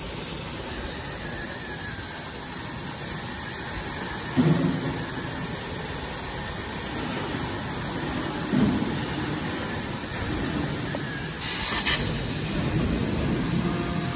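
Steady hiss of an oxy-fuel gas cutting torch burning through thick steel plate. Two dull thumps break in, about four and a half and eight and a half seconds in, and a low engine-like hum starts near the end.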